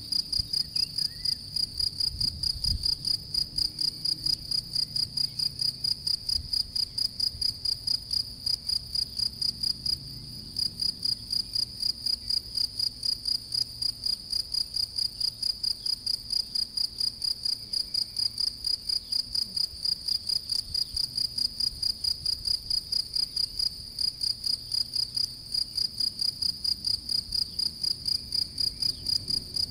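European field cricket (Gryllus campestris) singing at its burrow mouth: a steady, high-pitched chirping at about three to four chirps a second, with a brief pause about ten seconds in.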